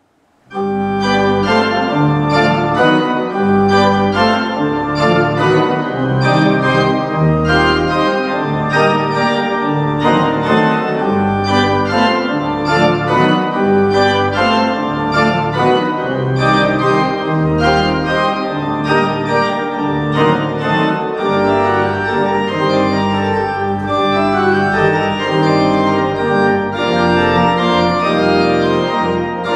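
Pipe organ playing solo: a lively piece starts about half a second in, with quick repeated note attacks over changing pedal bass notes.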